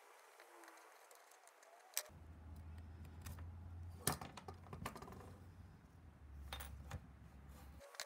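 Small metal clicks and clinks as a steel timing-belt clip and a small screwdriver are worked and handled on a wooden workbench. The sharp clicks come scattered through, loudest about two and four seconds in. A faint low hum runs underneath from about two seconds in until just before the end.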